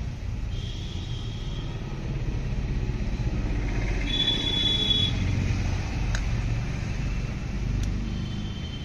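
A low rumble that builds up and then eases off, with two brief high-pitched squeaks and a couple of faint clicks.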